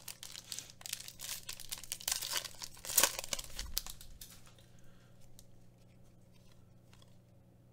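Foil wrapper of a Mosaic soccer trading card pack crinkling and tearing as it is ripped open, with the sharpest rip about three seconds in. The crackling dies away after about four and a half seconds.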